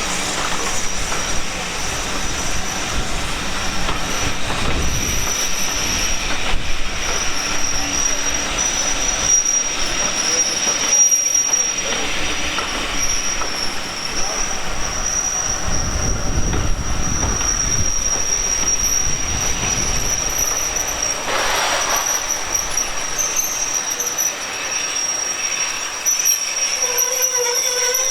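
Railway train running on the line with a steady high-pitched squeal of wheels against the rails over a low rumble.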